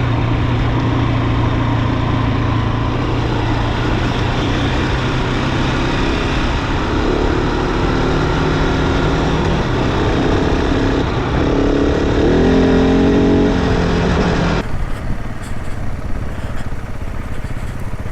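Adventure motorcycle engine running under way, with heavy wind and road noise. The engine note climbs several times in the middle as the bike accelerates, then the sound changes suddenly to a quieter, thinner rush a few seconds before the end.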